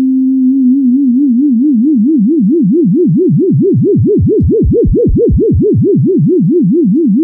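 Pure sine-wave synthesizer tone at about 262 Hz (middle C), its pitch modulated by a 4.5 Hz sine LFO to make vibrato. The pitch wobbles about four and a half times a second. The wobble widens to a deep, swooping swing about five seconds in, then narrows again.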